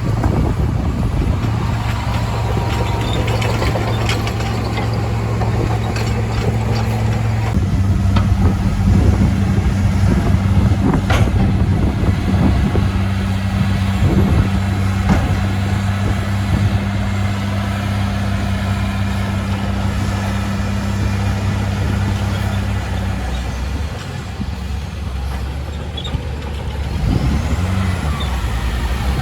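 Shantui DH17C2 bulldozer's diesel engine running steadily under load, its note shifting about a quarter of the way in and dropping near the end, with a few metallic knocks from the machine.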